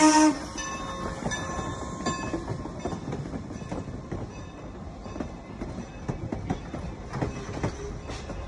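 Norfolk and Western #475 steam passenger train rolling past, its wheels clicking over the rail joints in an uneven run of knocks. A steam whistle blast cuts off right at the start.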